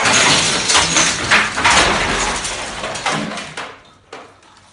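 A wooden stepladder toppling over with a man on it and crashing onto a tiled floor, followed by a long clatter of knocks as objects fall and scatter. The clatter dies away about three and a half seconds in.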